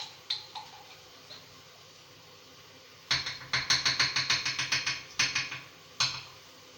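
Kitchen utensils clattering against a pan or dish: a few single clicks, then a quick run of sharp knocks lasting about two seconds from about halfway in, and one last knock near the end.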